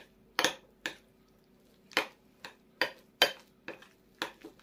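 Metal spoon clinking and scraping against a glass bowl while stirring a thick egg-yolk, cheese and mayonnaise filling: about a dozen sharp clinks, irregularly spaced at two or three a second.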